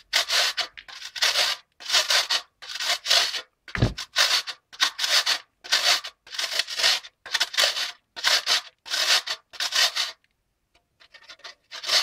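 Metal box grater rasping as lumps are rubbed through it into a bowl of homemade washing powder, in quick strokes about two a second. A dull knock comes about four seconds in, and the strokes pause briefly near the end.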